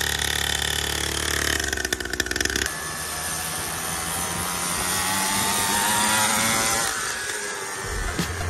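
Small petrol engine of a mini dirt bike running at high revs with a buzzing whine, then after a sudden change revving on, its pitch climbing slowly for several seconds.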